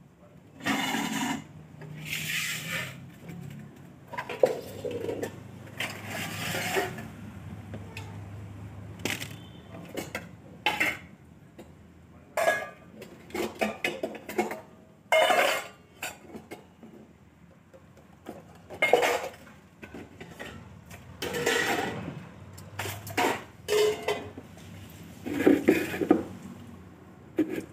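Stainless steel pots, plates and tumblers clattering and clinking irregularly as they are washed by hand, some knocks ringing briefly. Near the end, a longer splash as a plastic tub of water is tipped out.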